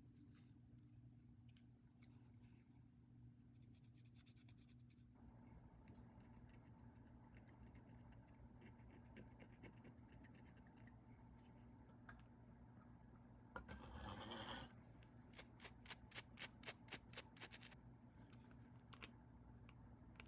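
Small hand-tool work on a plastic toy part: faint clicks and handling, then a short scrape about two-thirds through, followed by a quick run of about a dozen sharp scraping or snipping strokes, the loudest sound in the stretch.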